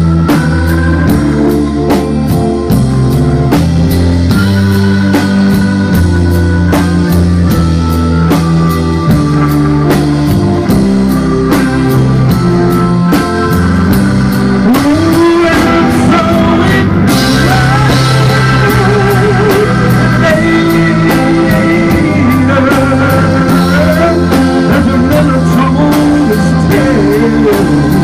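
Live rock band playing with electric guitar, electric bass and drum kit. The drums keep a steady beat under held bass notes, and the lead line has gliding, wavering notes near the middle.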